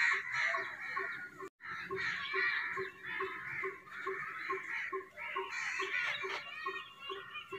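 A large flock of crows cawing together, many calls overlapping without a break, apart from a short gap about one and a half seconds in. A regular low pulse, about three a second, runs faintly underneath.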